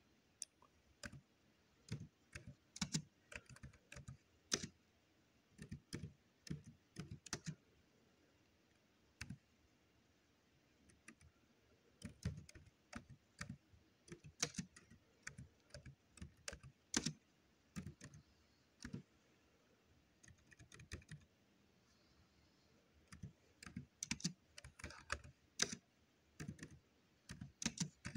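Typing on a computer keyboard: irregular runs of key clicks, broken by a couple of pauses of two or three seconds.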